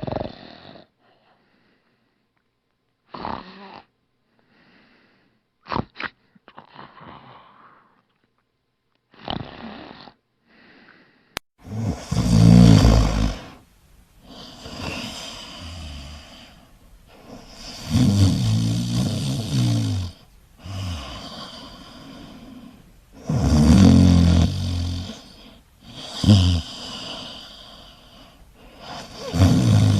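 A person snoring. First come short, faint snorts with silent gaps between them. After a sudden click about a third of the way in, a louder, deeper rattling snore follows every five to six seconds, each trailed by a softer, longer breath.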